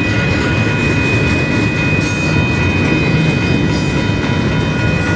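Union Pacific double-stack container freight train passing close by: a dense, loud rumble of wheels on rail with a steady high squeal held over it.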